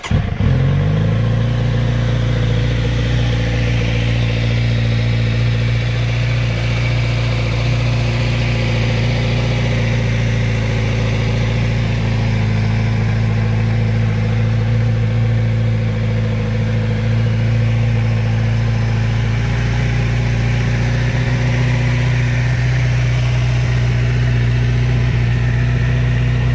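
Kawasaki Z900RS Cafe's inline-four engine fires up and, within about a second, settles into a steady idle.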